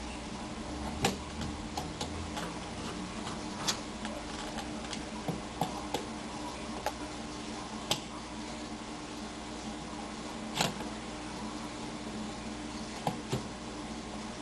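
Scattered light clicks and taps from hand work fitting a smoke-alarm trim ring to the ceiling box, about a dozen at irregular intervals, over a steady background hum.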